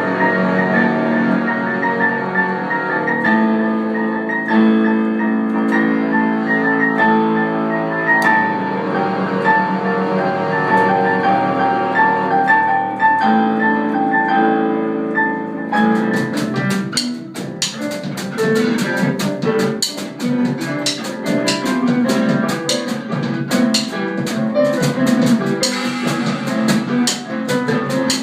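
A small band improvising instrumental music. At first it plays held, overlapping pitched notes. About two-thirds of the way in the sound changes abruptly to a busier passage with rapid drum and percussion hits under the pitched parts.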